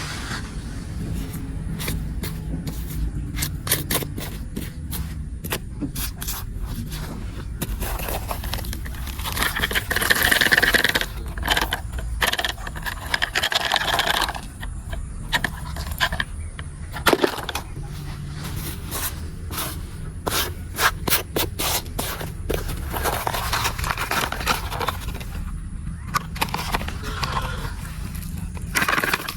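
Toy vehicles' plastic wheels rolling and scraping over a hard surface, with many scattered clicks and knocks.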